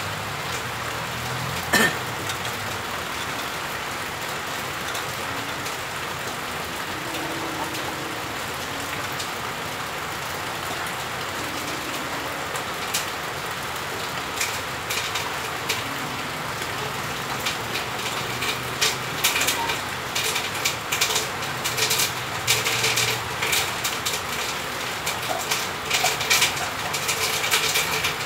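Steady rain hiss throughout. There is one sharp knock about two seconds in, and from about halfway on come repeated clicks and rattles as a wire-mesh snake trap and a cloth bag are handled.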